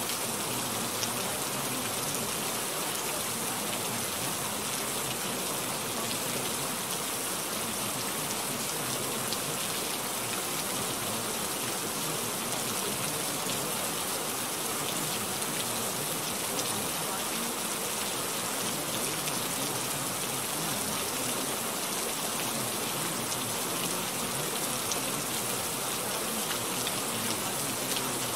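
Steady rain sound: an even hiss with faint scattered ticks of drops.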